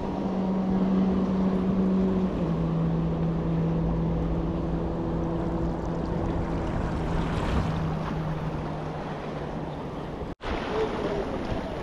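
A steady engine hum that drops in pitch a little over two seconds in and fades out later, over wind and water noise.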